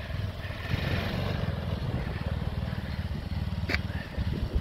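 Mini Willys jeep's 150cc petrol engine running steadily with a fast, even firing beat as the little jeep drives off across tarmac. A single sharp click comes about three-quarters of the way through.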